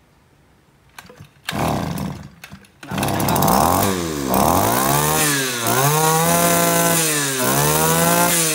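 Shindaiwa S24 brush cutter's small two-stroke engine being pull-started: a couple of quick pulls on the recoil starter, then it catches about three seconds in and runs. Its pitch rises and falls about four times as the throttle is opened and closed.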